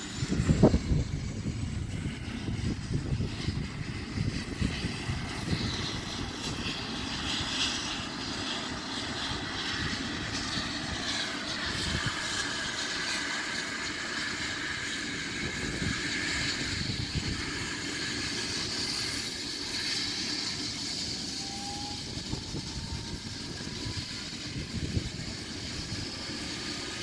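Air ambulance helicopter running on the ground before takeoff: a steady high turbine whine that rises slowly, over a low rumble from the turning rotor. A brief thump about half a second in.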